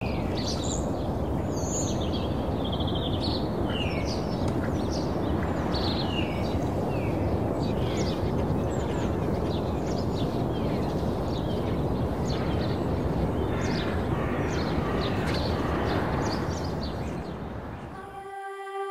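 Outdoor nature ambience: many birds chirping and calling over a steady rushing background noise, fading out near the end.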